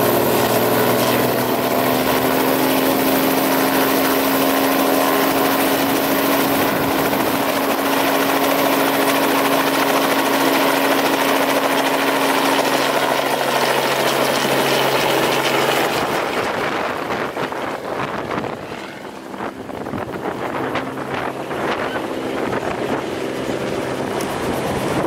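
Robinson R44 helicopter running on the pad with its rotor turning: a loud steady engine-and-rotor hum that climbs slightly in pitch over the first two seconds, then holds. About 16 s in it gives way abruptly to quieter wind noise on the microphone and a more distant helicopter.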